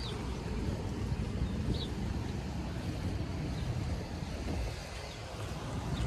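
Wind buffeting the microphone outdoors, a steady, fluttering low rumble, with a few faint short chirps high above it.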